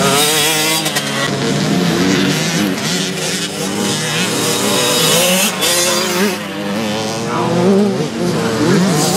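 Several small youth dirt bike engines revving together, their pitch rising and falling and overlapping as the riders work the throttle over a jump.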